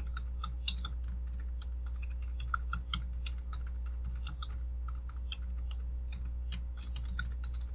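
Typing on a computer keyboard: a quick, irregular run of keystroke clicks as a username and password are entered. A steady low hum runs underneath.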